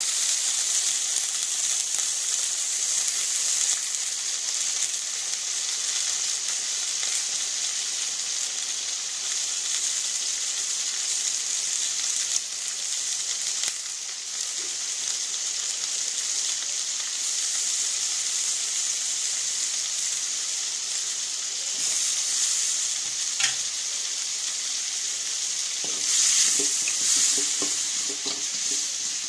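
Bitter gourd pieces sizzling in hot oil in an aluminium kadai, a steady hiss that grows louder about three quarters of the way through. Near the end a spatula stirs and scrapes the pieces around the pan.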